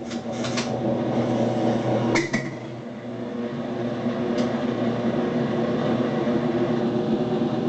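Electrolux TOP8A top-loading washing machine running in its spin cycle: a steady motor hum that builds slightly from about three seconds in, with a few short clicks or knocks in the first couple of seconds. This is the noise the owner reports the machine making when it spins.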